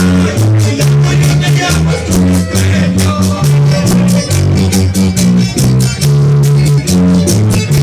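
Latin dance music with a steady beat: a bass line moving note to note under quick, evenly spaced percussion strokes.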